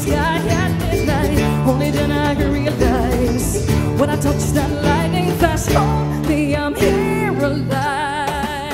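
A live acoustic folk-rock band plays: guitars, Renaissance lute, mandolin, cello and percussion, with wordless singing over them. The music eases off slightly near the end.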